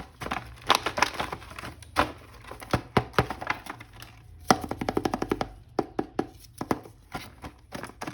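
Small plastic clicks, taps and crinkling as a toy action figure and its packaging are handled, with a quick rattling run of clicks around the middle.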